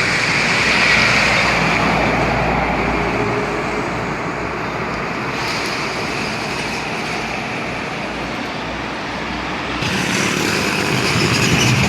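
Road traffic noise: vehicles running past on a busy road as a steady, loud rush, with no horn sounding. The sound changes abruptly about ten seconds in.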